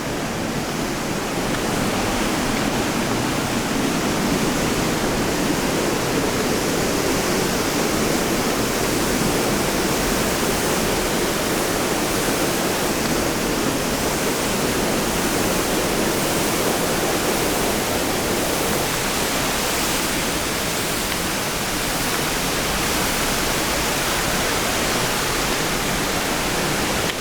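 Middle North Falls pouring: a loud, steady rush of falling water.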